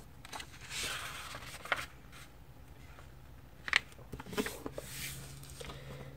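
A sheet of letter-size copy paper being folded in half by hand and the crease pressed flat: soft rustling and sliding of paper, with two sharp clicks along the way.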